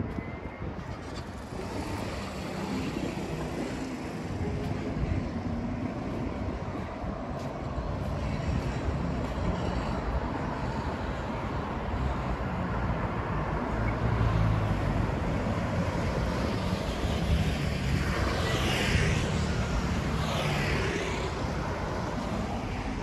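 Road traffic on a multi-lane city street, a steady rumble of passing cars. Near the end, two brief sweeping sounds rise over it as vehicles pass close by.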